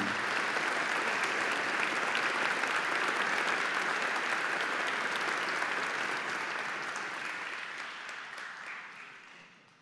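An audience applauding steadily, then dying away over the last three seconds or so.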